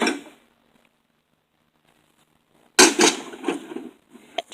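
A broken microwave oven is struck hard about three seconds in: one sharp crash, then about a second of clattering with a second knock partway through. Before the blow it is nearly silent.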